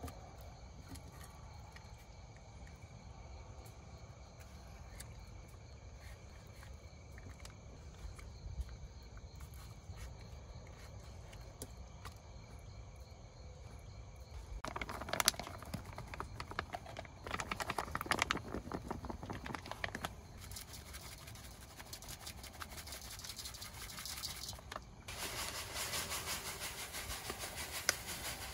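Insects chirring steadily and faintly. From about halfway a dense crackling, rustling noise comes in, in two stretches of a few seconds each, then again near the end, and it is the loudest thing heard.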